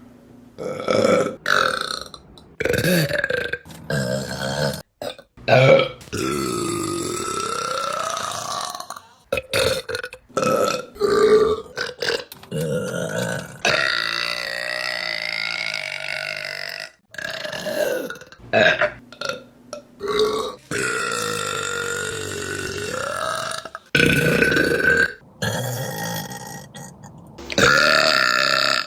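A string of women's burps, one after another with abrupt cuts between them: short ones mixed with several long, drawn-out belches of a few seconds each, their pitch wavering up and down.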